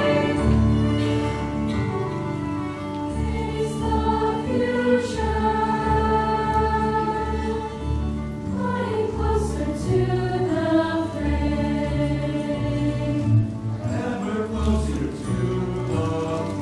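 High-school choir singing with many voices holding and moving between sustained notes, over a low note that pulses about once a second beneath them.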